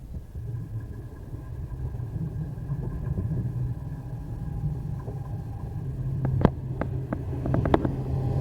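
DB Class 426 electric multiple unit running, a low rumble growing steadily louder with faint steady whine tones. A quick series of sharp clicks comes in the last couple of seconds.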